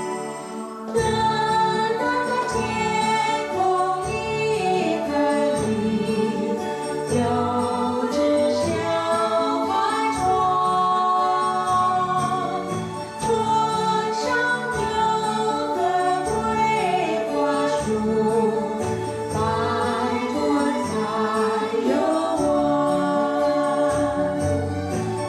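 Waltz-time song playing: a sung melody over instrumental accompaniment.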